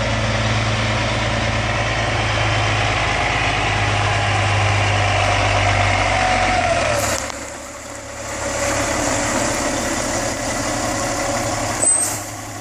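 A 1999 Freightliner FL112 truck tractor's diesel engine idling steadily. About seven seconds in the low engine hum drops away and the sound fades to a fainter noise, with a sharp click near the end.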